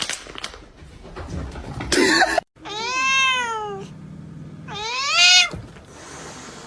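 A cat meowing: two long drawn-out meows, the first rising then falling in pitch, the second rising and louder. A short noisy scuffle comes before them, about two seconds in.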